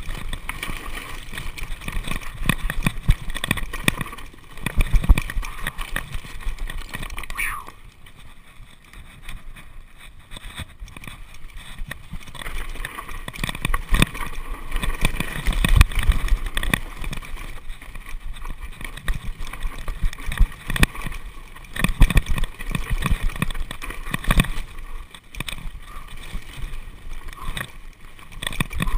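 Mountain bike riding a bumpy dirt singletrack: frequent knocks and rattles of the bike and camera mount over rough ground, with continuous rolling noise. It goes quieter for a few seconds about eight seconds in, then the rattling picks up again.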